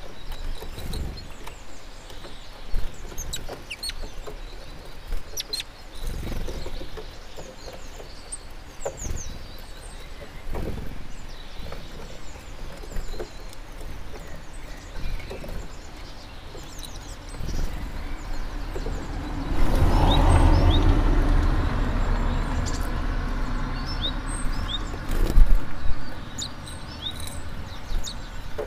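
Small songbirds at a seed feeder: many short, high chirps and calls of tits, with scattered taps and knocks of birds landing and pecking on the dishes. About two-thirds of the way in, a louder low rumble swells up and fades over several seconds, with a sharp knock near its end.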